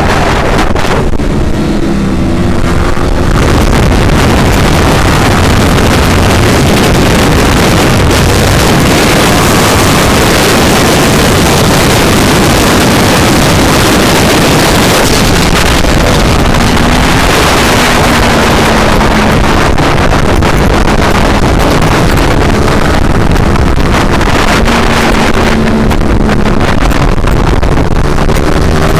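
Motorcycle engine running under way, almost buried under loud wind rushing over the microphone, with the engine note rising and falling now and then.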